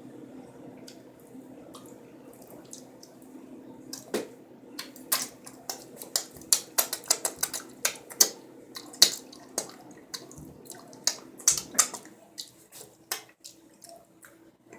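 Wet chewing and lip-smacking of someone eating durian close to the microphone: a quick, irregular run of smacks and clicks, thickest from about four seconds in to near the end, over a faint steady hum.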